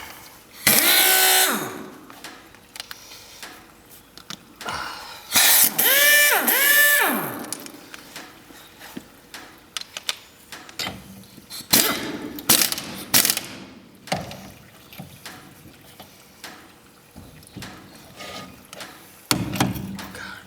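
Harbor Freight impact wrench run in three short bursts on a wheel's lug nuts, its motor whining up and winding down each time without breaking the nuts loose: the impact is dying. Light clicks and clanks of tool handling come between the bursts.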